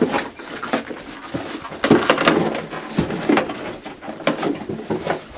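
A young coyote rooting and rummaging for hidden food, making a busy run of short rustles and scuffs.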